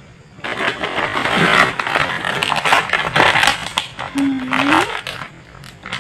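Crackling, scraping handling noise of packaging being opened, dense with small clicks and crinkles.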